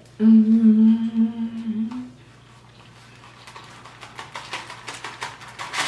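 A woman's long hummed "mmm" of enjoyment while eating, held on one pitch for about two seconds with a slight lift at the end. It is followed by soft clicks and rustles that grow louder toward the end.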